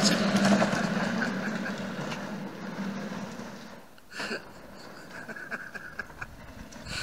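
Children's electric ride-on toy car's small motor humming and its plastic wheels rolling on asphalt, fading as it drives away. A brief high-pitched sound about four seconds in.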